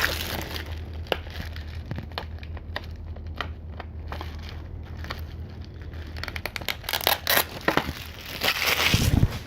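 Sticker seals and plastic packaging being peeled and picked off a Blu-ray case, crinkling and crackling in scattered bursts that get busier and louder near the end, with a low thump about nine seconds in.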